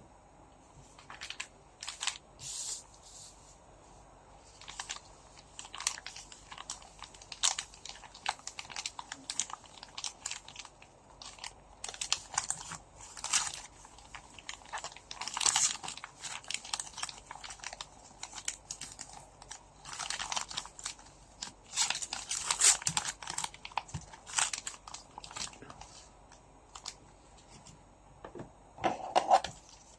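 Foil trading-card pack wrappers crinkling and tearing as packs are opened and handled, in irregular bursts of rustling throughout.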